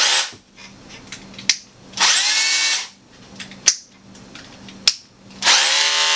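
Makita DHR202 18 V cordless rotary hammer test-run with no load after reassembly: short trigger pulls, the motor spinning up with a rising whine and winding down, about two seconds in and again near the end. A few sharp clicks come in the gaps between runs.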